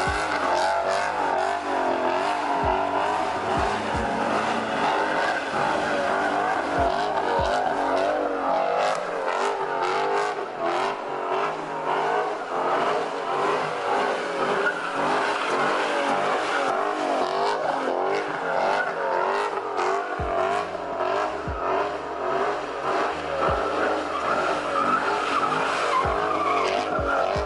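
A car drifting, its tyres squealing without a break and wavering in pitch over the sound of the engine.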